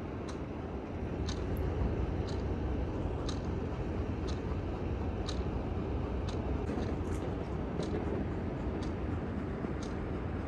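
A clock ticking evenly about once a second over a steady low hum.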